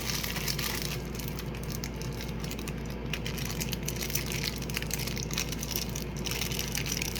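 A crunchy granola fruit bar being crushed and crumbled by hand, giving a continuous dry crackling made of many small cracks, over a steady low hum.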